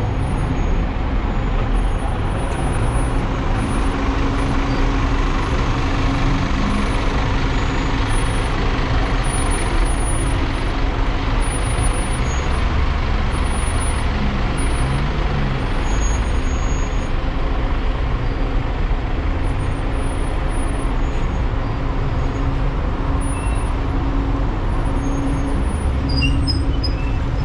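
City bus engine running at idle, a steady low hum under the general street traffic noise.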